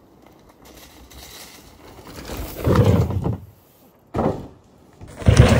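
Mountain bike riding a dirt jump off a wooden ramp: tyres rushing over dirt and boards, with landing thuds. Three loud noisy swells come about two and a half, four and five seconds in.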